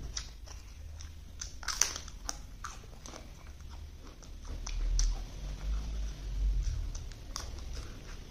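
Close-up eating sounds: crisp fried potato chips cracking as they are broken by hand and crunched while chewing. There is a run of sharp crackles, loudest about two seconds in, and a low chewing rumble in the second half.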